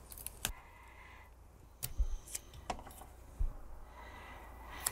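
Handling sounds of a thin PTFE baking sheet being taped down with masking tape: a scattering of small clicks, crinkles and knocks, with a couple of short rasps as tape comes off the roll.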